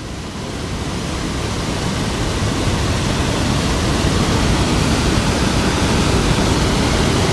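Water released through the open sluice gates of a brick weir, spilling down into the river below: a steady rush of falling water that grows louder over the first few seconds.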